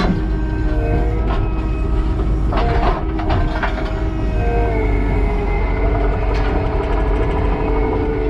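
Kubota SVL90-2 compact track loader's diesel engine and hydraulics running under load, the hydraulic whine shifting in pitch as the machine works. A few sharp metal-on-concrete clanks come about a second in and again between about two and a half and four seconds, as the tooth bucket handles broken patio slabs.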